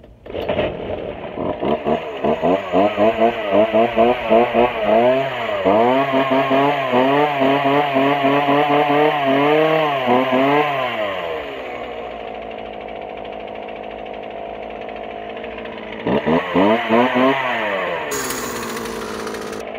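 Poulan two-stroke chainsaw engine starting and being revved up and down in quick repeated blips, then settling to a steady idle about twelve seconds in, with a few more revs before it drops back to idle. It runs after its dry-rotted primer bulb and fuel lines were replaced.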